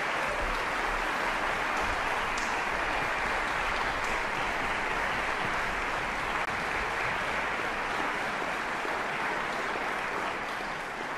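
Concert hall audience applauding steadily, easing off slightly near the end.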